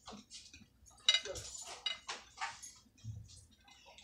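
Metal forks clinking and scraping on ceramic plates, a handful of short separate sounds, with the sharpest, ringing clink about a second in.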